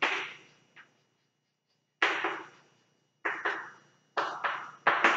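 Chalk writing on a chalkboard: about eight short strokes, each a sharp tap fading into a scratch, with a pause of about a second early on and the strokes coming faster over the last two seconds.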